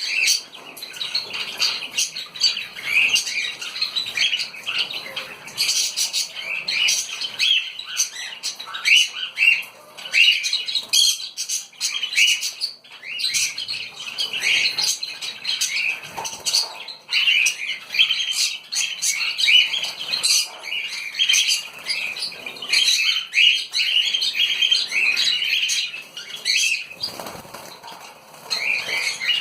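A flock of small birds chirping and calling constantly, the calls overlapping, with frequent wing flapping and fluttering.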